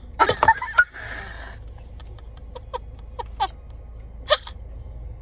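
A woman's laughter: a loud high squeal about a quarter second in, a breathy wheeze, then short squeaky gasps of stifled laughter, over a low steady hum.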